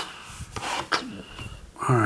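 A cardboard trading-card box being opened and handled: a sharp tap, then rustling of cardboard and packaging with a few light clicks.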